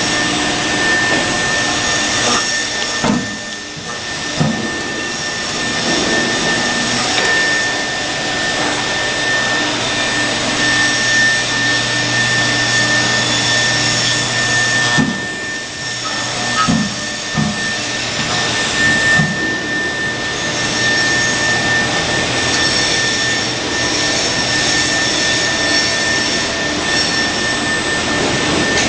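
Five-axis CNC router's spindle running with a steady high whine while its cutter carves a head-shaped block, a hiss of cutting under it. A few short knocks come through as the head moves around the piece.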